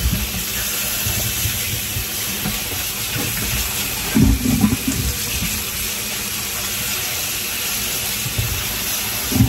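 Kitchen tap running steadily into a colander of cut pumpkin in a stainless steel sink, the water splashing over the pieces as they are turned by hand to rinse off the lime they were soaked in. A few louder bumps about four seconds in.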